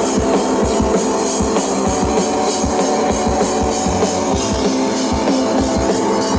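Live drums and synthesizer playing loud, dense music: layered sustained synth tones over a fast, even kick-drum beat.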